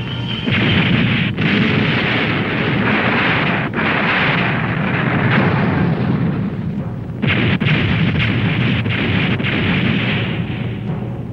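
Special-effects explosions: a long run of blasts following one after another, with brief breaks a little over a second in, near four seconds in and about seven seconds in, fading near the end.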